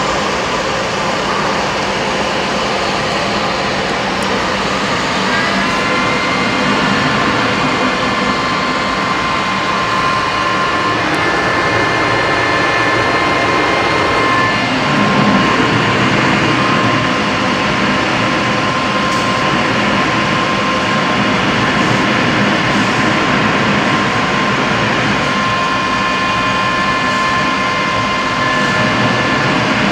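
Jet engine and airflow noise heard from inside a jet trainer's cockpit in flight: a steady rush, with a thin steady whine joining about five seconds in.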